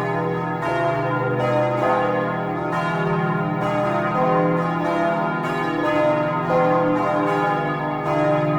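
Four church bells ringing together in a peal, their strikes overlapping in an uneven pattern about once or twice a second, each stroke ringing on under the next.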